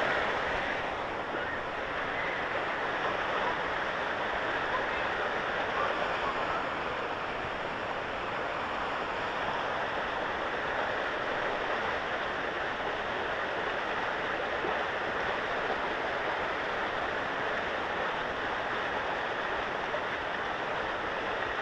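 Water rushing steadily down a water-park slide: an even hiss of running water with no breaks.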